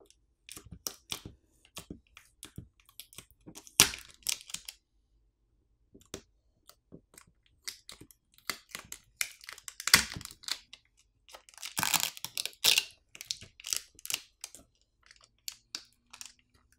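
Plastic battery pull-pouch film crinkling and the battery's adhesive tearing loose as a smartphone's lithium-polymer battery is pried up out of its frame. The crackles come irregularly, with louder bursts a few times.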